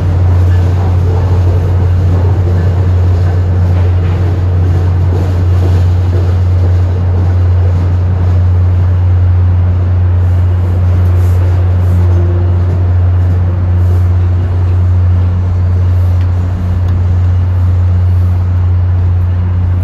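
Loud, steady low drone of a running engine, holding one pitch without change.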